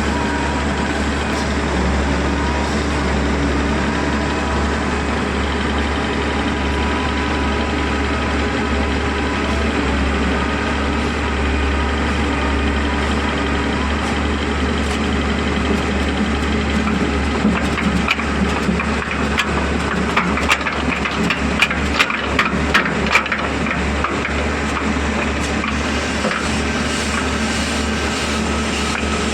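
Heavy construction machine engine running steadily. A little past halfway, a run of sharp knocks and clatter lasts several seconds.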